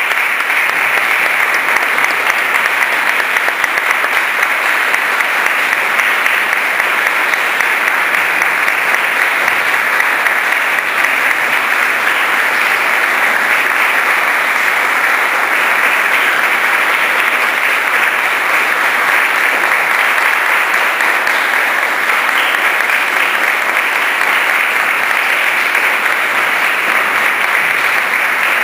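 Audience applauding steadily for the whole stretch: a long, unbroken round of clapping at the close of a concert.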